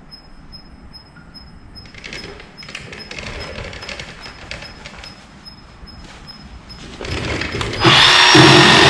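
Small electric chainsaw starting up about eight seconds in and running steadily at full speed, cutting into the boat's wooden transom. Before it starts there are only light handling clicks and scrapes.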